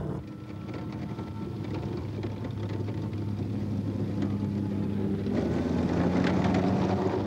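Military armoured vehicle engines running with a steady drone, growing louder about five seconds in.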